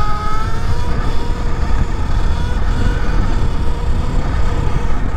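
Sur Ron electric dirt bike's motor whining, its pitch rising over the first second as the bike speeds up and then holding steady, under heavy wind rumble on the microphone.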